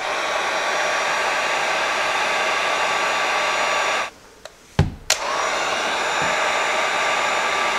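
Heat gun blowing steadily with a faint fan whine as it shrinks heat-shrink tubing over wire butt connectors. It is switched off about four seconds in, and a low knock and a click follow. It starts up again about a second later.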